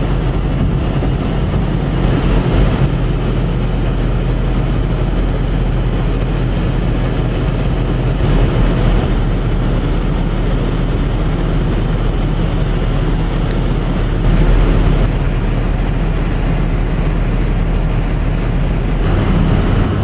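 Steady road and engine noise inside a pickup truck's cab at highway speed on a snow-covered road, swelling briefly three times.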